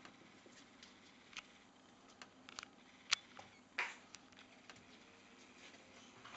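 Quiet room with a few faint scattered clicks and taps, a sharper click about three seconds in and a short rustle just after it.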